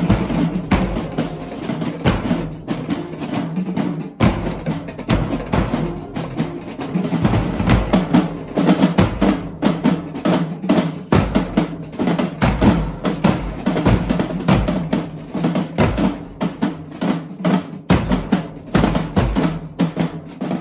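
Marching band drumline playing, with marching bass drums struck with mallets among the drums, in a dense, driving beat that is loud throughout.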